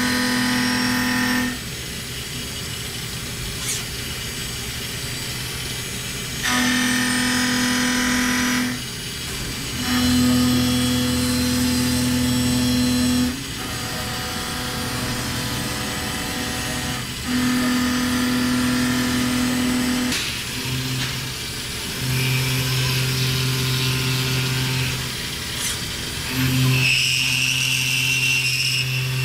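CNC mill-turn machine milling a crankshaft: the cutter makes a steady pitched whine that sounds for a couple of seconds at a time, drops out, and returns at a different pitch, lower in the second half, over constant machining hiss.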